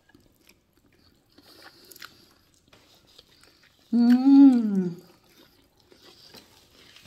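Wet chewing and lip-smacking while eating lamb neck chop off the bone with the fingers, in small soft clicks. About four seconds in, a loud closed-mouth hum of enjoyment lasting about a second, its pitch rising then falling.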